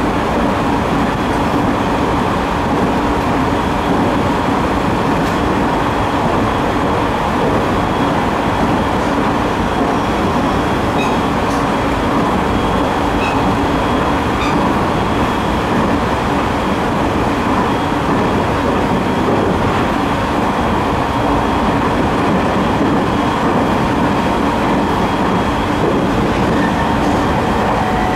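Interior running noise of a JR 209 series 3100 subseries GTO-VVVF electric train (set Hae 71, MT68 traction motors) travelling between stations: a steady, loud rumble of wheels on rail with faint steady whines from the drive.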